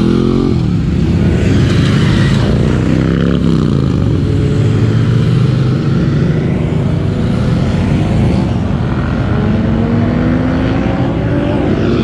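Motorcycle engines accelerating away, their pitch rising and falling several times, with a long rise near the end.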